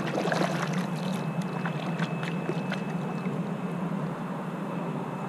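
Kayak paddle working the water, with small splashes and drips off the blade in the first few seconds, over a steady low hum.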